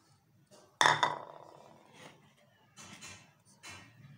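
A hard bowl set down on a stone countertop with one clink and a short ring about a second in, followed by a few softer handling and rustling sounds.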